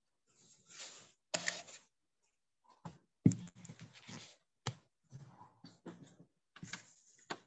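Scattered clicks, knocks and short rustles at irregular intervals, with dead silence between them.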